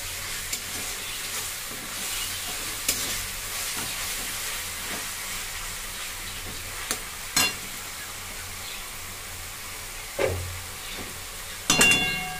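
Spice masala paste sizzling in oil in an aluminium wok as it is stirred and scraped with a spatula, with a few knocks against the pan and one loud, ringing metal clang near the end. The masala is being fried down (kasha) until the oil separates.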